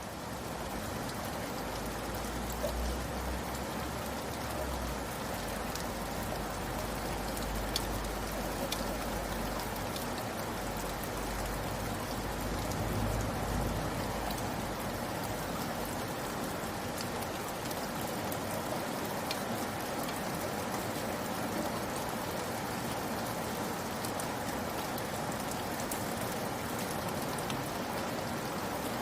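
Steady rain falling, with scattered single drops ticking on a surface. A low rumble runs underneath for about the first half, then fades out.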